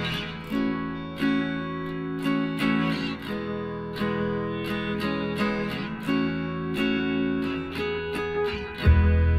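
Background music: acoustic guitar picking and strumming in a steady rhythm, with a deep bass note coming in near the end.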